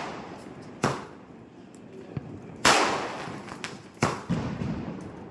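Multi-shot firework cake going off: three loud sharp bangs about a second and a half apart, each trailing off in a rolling echo, with fainter pops in between.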